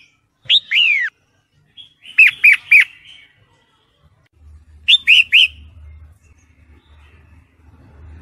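Red-whiskered bulbul calling: a sharp falling two-note call about half a second in, then two quick runs of three short falling notes around two and five seconds in, with softer chatter between. The calls are presented as a female in breeding condition calling to a male.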